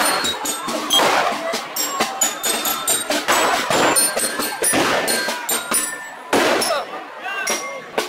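Street procession with a crowd's voices mixed with band music and frequent sharp percussive hits, about two or three a second.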